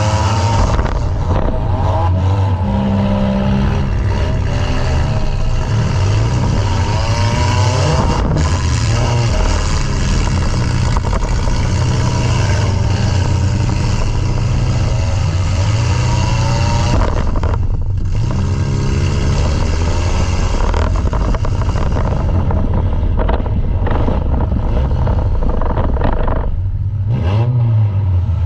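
Compact demolition derby car's engine running loud and being revved up and down repeatedly, heard from inside the stripped cockpit, with a couple of brief lulls.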